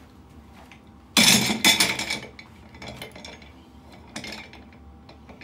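Metal five-star base of a vintage office chair on new rubber casters being set rolling across a rough concrete floor: a loud metallic clatter about a second in, lasting about a second, then a few lighter knocks.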